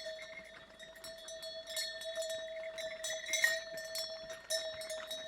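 Animal neck bells clanking over and over, many small strikes keeping up a steady metallic ring, as livestock wearing them move about. The strikes bunch up and get louder about three and a half seconds in.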